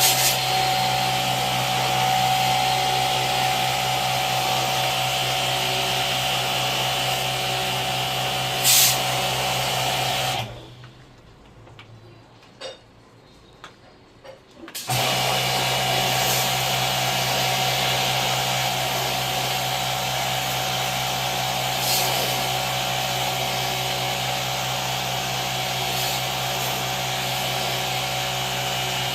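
A small electric motor-driven machine running steadily with a low hum. It shuts off about ten seconds in and starts again about four seconds later, with a couple of brief hissy flares while it runs.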